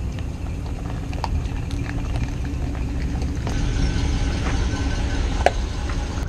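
Ford pickup truck's engine running at low speed while reversing an empty boat trailer, a steady low rumble. A few light clicks, with one sharp click about five and a half seconds in.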